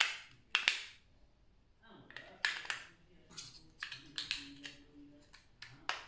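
Sharp plastic clicks and snaps from handling a white projector remote control, about ten of them at uneven intervals, the loudest at the very start.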